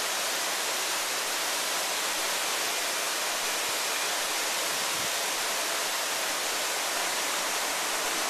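Waterfall: falling water making a steady, even rush of noise that never lets up.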